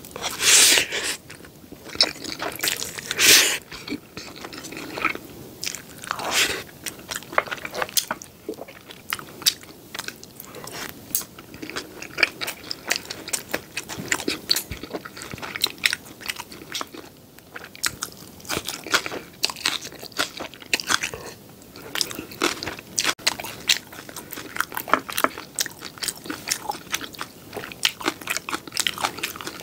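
Close-miked eating of black bean instant noodles (jjapaghetti) off a spoon: two loud slurps in the first few seconds, then steady chewing with many small wet mouth clicks.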